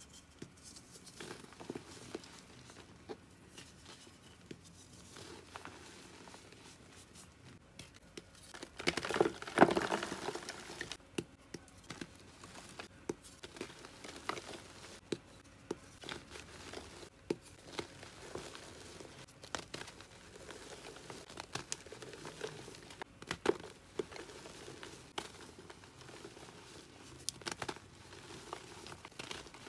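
Dry gym chalk crushed and crumbled between the hands: soft crackling crunches and crumbling powder, with the loudest, densest crunch about nine seconds in.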